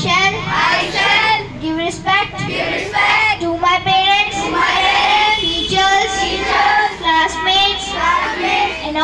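A group of children's voices in unison, reciting a pledge together in a sing-song chant with some notes held.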